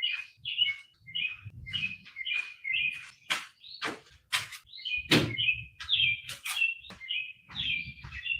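A bird chirping in a rapid, continuous series of short high calls, with a few sharp clicks or taps in the middle.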